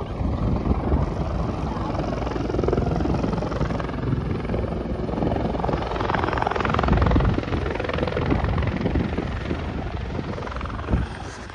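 Helicopter running on the ground with its rotor turning: a steady chopping drone with turbine noise, a little louder about midway.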